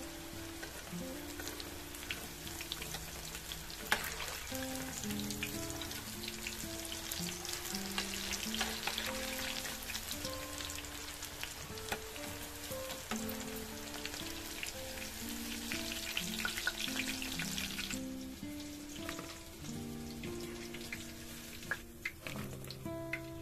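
Chicken pieces deep-frying in hot oil: a dense, steady sizzle and crackle of bubbling oil that cuts off suddenly about three quarters of the way through. A light melodic background music runs underneath throughout.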